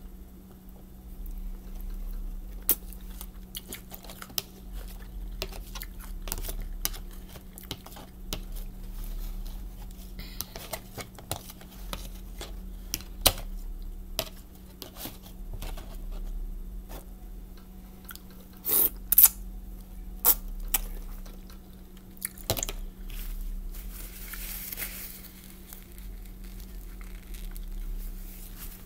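Close-up eating sounds: a metal fork tapping and scraping in a clear plastic bowl, with chewing and mouth noises between the taps. A run of louder clinks comes a little past the middle.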